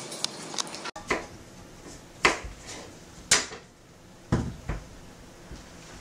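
A kitchen knife cutting fruit on a cutting board: a sharp knock against the board about once a second, with quieter handling in between. It is preceded by a few faint clinks of dishes in a sink that cut off abruptly just before the first knock.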